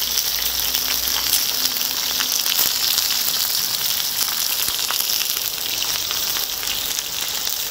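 Pork tomahawk chops searing on a large cast-iron pot-lid griddle: a steady sizzle of frying fat with fine crackles and pops.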